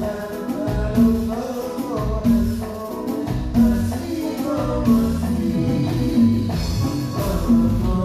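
Live cumbia band playing, with drums, bass and percussion under a singer's voice. A strong low note and accent come round about every one and a third seconds.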